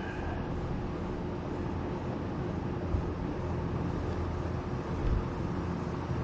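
Steady low background rumble with a faint constant hum and no distinct events.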